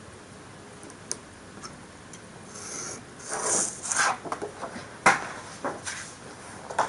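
A sheet of printed paper rustling and sliding across a cutting mat as it is lifted away, followed by sharp taps and clicks of a metal ruler and hobby knife being handled and set down. The loudest tap comes about five seconds in.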